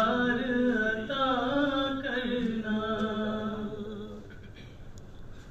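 A man's solo voice reciting a naat (Urdu devotional poem) without accompaniment into a microphone, singing long, wavering held notes. The voice stops about four seconds in.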